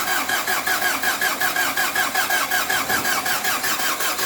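Mazda WL four-cylinder diesel engine being cranked by its starter motor, turning over in an even rhythm of about seven beats a second without firing: a hard start, after the fuel was primed with the hand priming pump.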